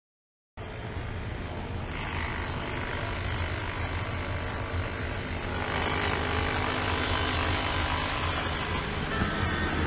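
Model train running on a layout, a steady motor hum with a low rumble. It begins about half a second in and grows gradually louder as the locomotive approaches.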